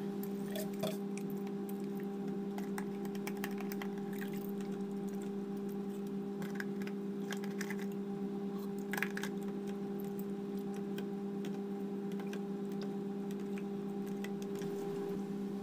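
A spoon stirring diluted coconut milk in a bowl, giving scattered light clicks and taps against the bowl, over a steady low hum.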